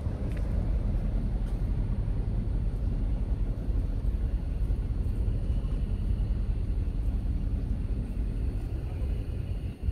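Scania P-series truck's diesel engine idling steadily, a continuous low rumble.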